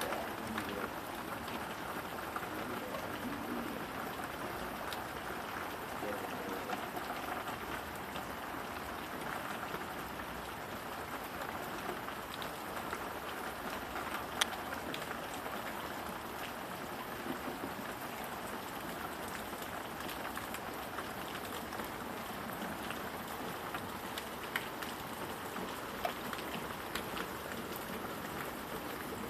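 Steady rain falling on a paved backyard patio, its plant pots and leaves, with a few sharper drip taps, the loudest about halfway through.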